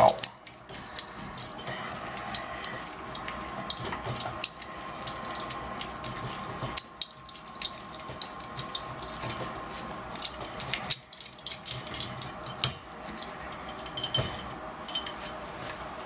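Small metallic clicks and clinks of a tool working at a chrome Moen Posi-Temp shower valve handle, loosening it so it can be pulled off the valve stem.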